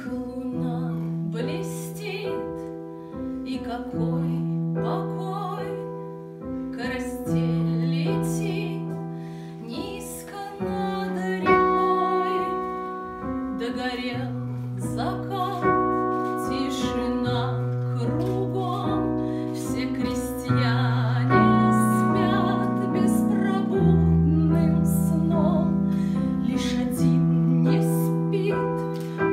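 Piano playing held chords, with a woman singing over it at times.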